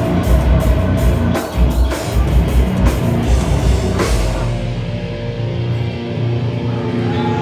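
Slam death metal band playing live: pounding drums under heavy distorted guitars, ending on a big hit about four seconds in, after which the guitars ring out without drums.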